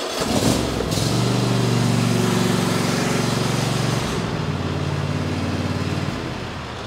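A Cub Cadet XT1 lawn tractor's twin-cylinder Kohler 7000 series engine starts at once on choke and runs fast, the quick start of a correctly adjusted choke. About four seconds in it settles to a lower speed, and it dies away near the end.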